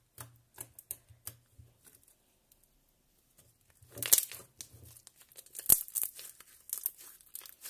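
Crunchy slime mixed with foam beads being squeezed and kneaded by hand, crackling and popping in short bursts, with a pause in the middle and one sharp pop a little before the end.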